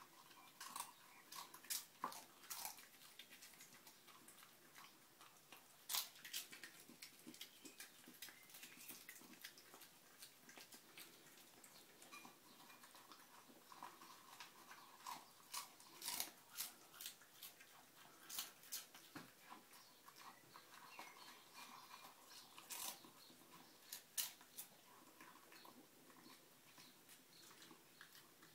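Small dog eating dry kibble from a bowl: irregular crunching and clicks of kibble against the bowl, a few much louder than the rest.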